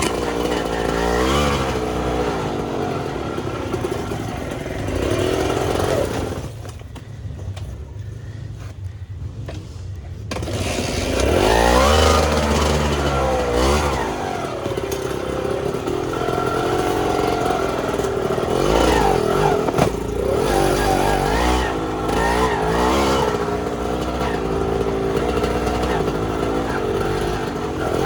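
Trail motorcycle engine revving up and down as it is ridden over rocks, the throttle opened and closed again and again. It drops back to a quieter idle for a few seconds about a quarter of the way in, then revs hard again.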